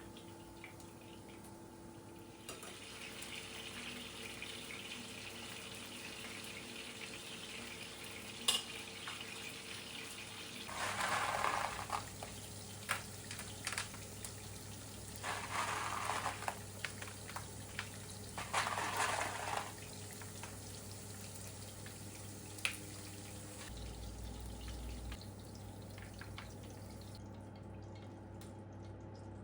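Water running from a kitchen tap into a sink, a steady hiss with three louder splashing stretches in the middle and a few sharp knocks of dishes.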